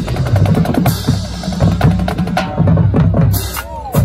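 Marching band playing: drums beating a driving, rhythmic cadence under low brass.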